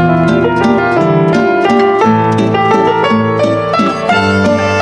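Instrumental background music: plucked strings playing a steady melody with a bass line.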